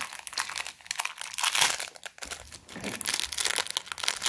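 Plastic sweets bag, a Haribo Goldbären packet, crinkling and crackling as hands handle it.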